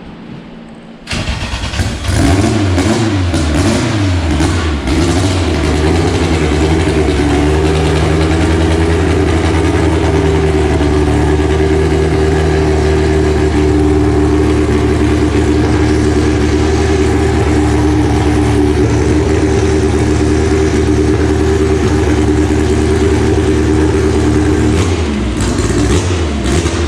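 Car engine starting about a second in and revving up, then running at a steady high speed. Near the end it eases off and picks up again.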